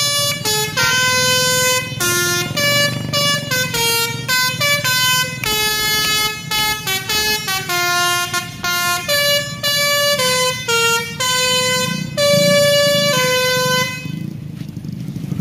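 A tour bus's basuri musical air horn playing a quick tune, note after note at changing pitches, over the low rumble of the bus engine; the tune stops about a second before the end.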